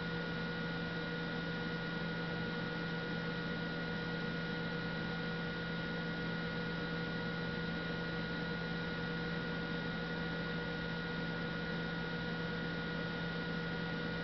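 Old hard drive's spindle motor spinning its platter at a steady 3600 RPM: a steady low hum with a thin, higher whine above it.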